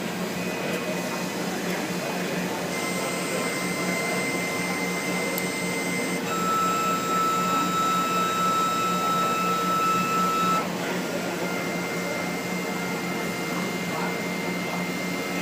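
3D printer at work: a steady fan hum under stepper motors whining in held tones that jump to a new pitch a few times as the moves change.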